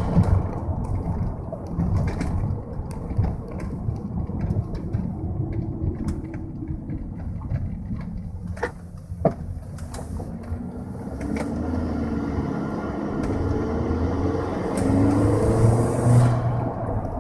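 A 2003 Volkswagen Jetta 1.8T's turbocharged four-cylinder engine and road noise while driving, the engine pitch rising as the car accelerates in the second half. A couple of sharp knocks sound about halfway through.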